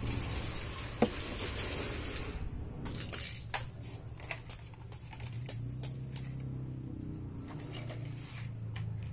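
Scattered handling clicks and knocks as glass balls are loaded into an M788 shotgun, with one sharp click about a second in. A faint low hum sits under the second half.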